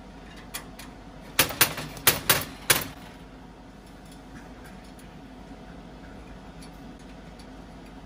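African grey parrot hanging upside down from the top of its aluminum cage, rattling the cage bars and the herb tray that sits on them: five sharp metallic clatters in quick succession about a second and a half in, with a few fainter clicks of its feet on the bars around them.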